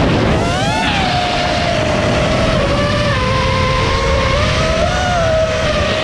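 FPV quadcopter's motors and propellers whining, the pitch sweeping up sharply just before a second in, then holding and wavering with the throttle, over a rush of air.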